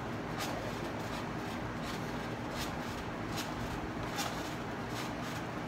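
Trampoline being bounced on: a short creak or swish from the springs and mat on each bounce, about every three quarters of a second, over steady background noise.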